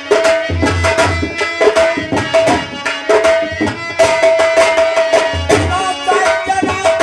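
Folk instrumental music: hand drums playing a fast, busy rhythm under a held melody line, with deep drum thumps now and then. It is the musical lead-in to a birha song.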